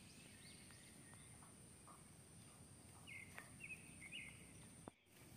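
Faint outdoor ambience with small birds chirping: a few short high chirps, then a quick run of three or four about three seconds in, over a thin steady high-pitched tone. The sound drops out briefly near the end.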